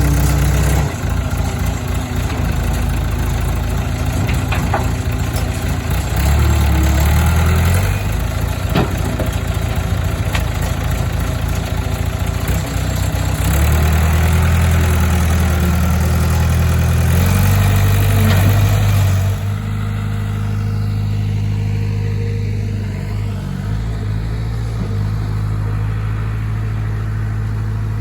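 1972 Ford dump truck's engine running while driving, its pitch stepping up and down several times as it speeds up and changes gear. About two-thirds of the way in the sound turns duller and a little quieter.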